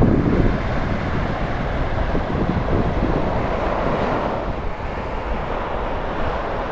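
Wind rumbling on the microphone over the rush of breaking surf, which swells midway.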